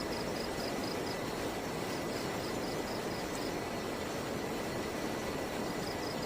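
Steady rush of flowing river water, with an insect chirping over it in high-pitched pulsed runs of about four pulses a second that stop and start, in the first second, around the middle and near the end.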